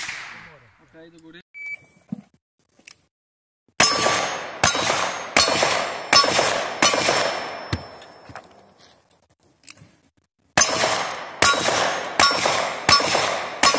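Revolver shots at steel plate targets: two quick strings of five shots, each shot followed by the ringing of a struck steel plate. There is a pause of about three seconds between the strings, and a single shot rings out at the very start.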